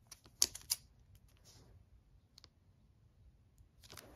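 Hard plastic SGC graded-card slab clicking as it is handled and turned over in the fingers: two sharp clicks about half a second in, a few faint ticks after, and a cluster of clicks near the end.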